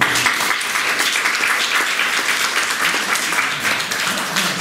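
Audience applauding, breaking out suddenly and keeping up a dense, even patter of claps.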